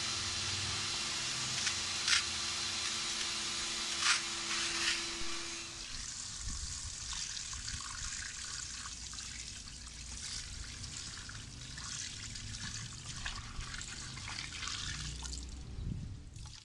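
Wet-extraction vacuum running, its upholstery tool drawing water out of a foam mattress with a steady hum and hiss that stops about six seconds in. Then dirty water pours and splashes out of the machine onto concrete.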